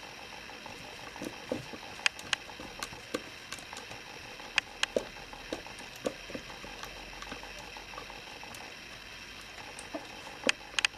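An American Curl kitten's claws and paws tapping and scrabbling on a cat tree's fabric and sisal: scattered, irregular light clicks and taps, with a cluster near the end.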